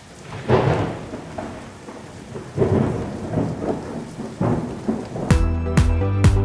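Thunder rolling over steady rain, with three loud rumbles. About five seconds in, electronic dance music with a steady kick drum comes in, about two beats a second.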